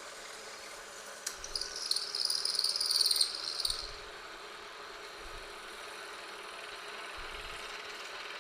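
Milling machine spindle running with a 1/2 inch end mill. About a second in, a high-pitched screech starts as the cutter plunges into the workpiece and lasts about two and a half seconds, then the machine runs on steadily.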